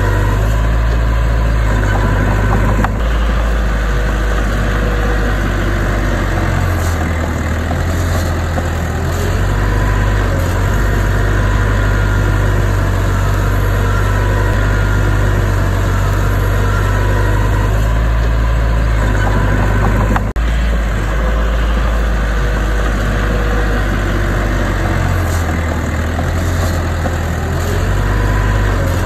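Heavy diesel engine of earthmoving machinery running steadily, its low rumble swelling and easing at times, with a brief dropout about twenty seconds in.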